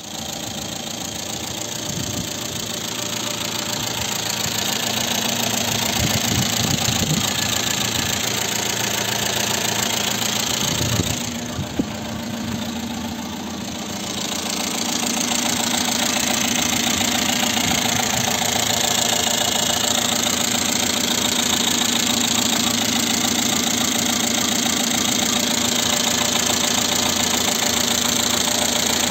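Renault petrol engine, of the kind fitted to the Super 5, R9, R11 and R19, idling steadily. About eleven seconds in there are two sharp knocks and a short dip in level before the idle settles again.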